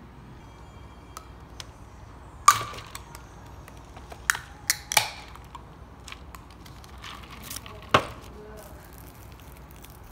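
Pull-tab lid of a canned coffee being opened: a series of sharp metallic clicks and cracks. The loudest comes about two and a half seconds in, a quick cluster follows around four to five seconds, and one more comes near eight seconds.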